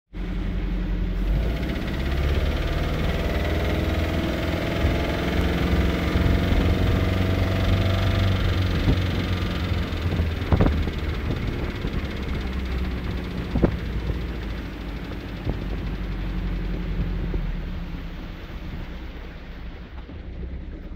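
1972 Mercruiser 3.0L 181 cu in 140 hp four-cylinder engine running steadily with a knock, a few sharper clicks standing out around the middle. The sound grows quieter near the end. The cause of the knock is unexplained: the owner found the crankshaft and rod bearings in good shape.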